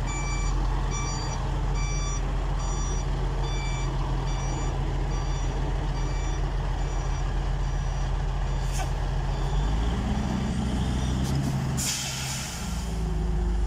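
Volvo F12 truck's diesel engine running while it reverses, its reversing alarm beeping about once a second and fading out after about eight seconds. Near the end the engine revs up and there is a short, sharp hiss of compressed air from the air brakes.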